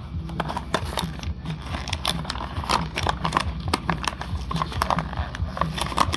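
Stiff plastic Hot Wheels blister pack being cracked and torn open by hand: a quick, irregular run of cracks, clicks and crinkles.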